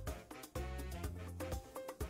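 Upbeat background music with a steady beat, bass line and percussion.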